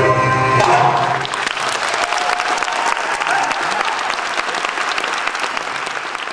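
A live Arabic band's closing notes stop in the first second and an audience breaks into applause, the clapping slowly dying down.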